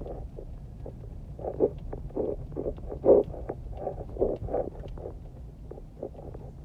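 Small car driving slowly over a rocky, potholed dirt road: a steady low rumble of engine and tyres, with irregular thumps and knocks as the wheels and suspension hit rocks, the loudest about three seconds in.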